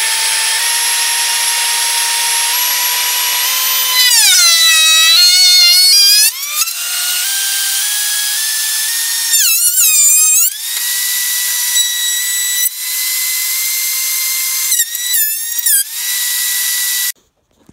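Benchtop thickness planer running with a high, steady motor whine; the pitch sags three times as the walnut and red oak cutting board passes under the cutterhead and loads the motor. It cuts off suddenly near the end.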